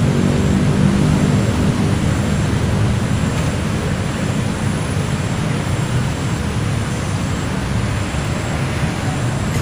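Airplane flying over: a steady low engine drone with a faint hum in it, loudest at first and slowly fading.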